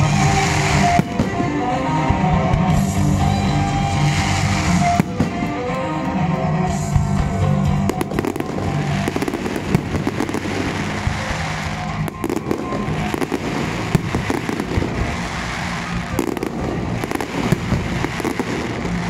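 Fireworks display: shells and mines bursting with bangs and crackling, over the display's soundtrack music. The music's notes are clearest in the first several seconds; from about eight seconds in, dense crackling with sharp bangs takes over.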